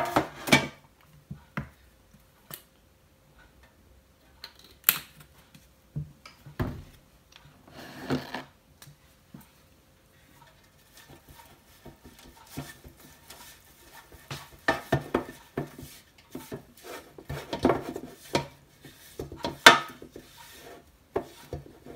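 Silicone pastry brush spreading oil over a metal baking tray: scattered light knocks and rubs, becoming a busier stretch of brushing and scraping in the second half.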